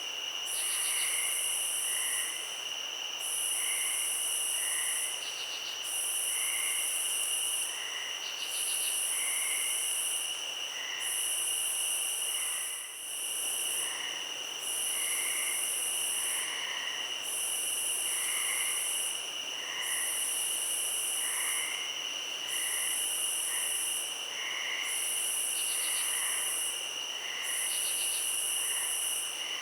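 Night chorus of insects. Two steady high trills run under a louder, higher buzz that comes in bursts of about a second and a half with short breaks, and short chirps repeat lower down.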